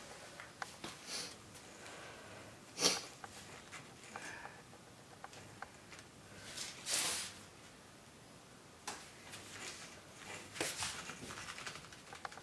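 Light metal taps and clicks of a claw hammer striking a screwdriver pressed against the base of a rubber tire valve stem on an aluminium wheel rim, irregular rather than rhythmic. A few short breaths are heard between the taps.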